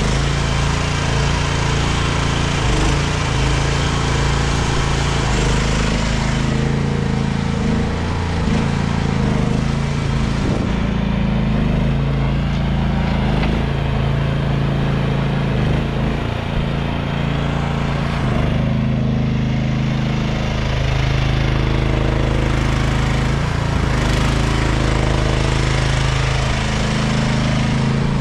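AGT DM12-C mini excavator's small engine running under hydraulic load as the boom, bucket and tracks are worked, its note shifting several times as the controls are moved.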